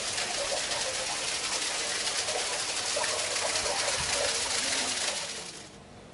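Water running steadily from a stone public fountain's spout into its basin, a splashing hiss that fades away near the end.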